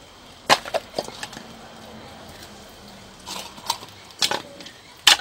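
A scattered series of sharp knocks and clacks, hard objects striking each other, about seven in all, the loudest near the end.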